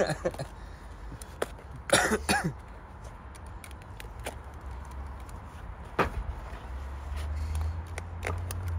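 Utility knife cutting into a sneaker's rubber and foam, with scattered small clicks and scratchy creaks. Someone coughs about two seconds in, and a low rumble rises near the end.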